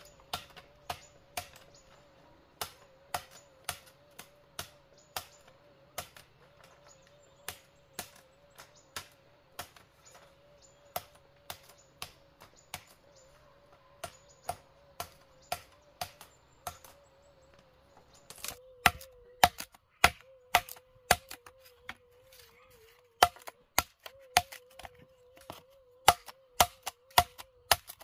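Machete blade chopping and splitting bamboo, sharp knocks about twice a second that grow louder and more frequent about two-thirds of the way in. A faint steady wavering hum runs underneath.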